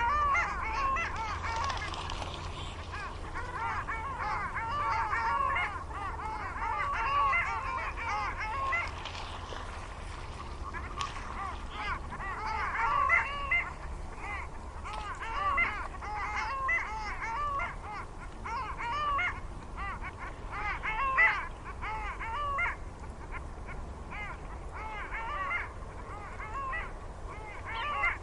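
A flock of ducks on a pond calling continuously, many short calls overlapping, swelling into denser bursts of chatter and then thinning out, over a steady low rumble.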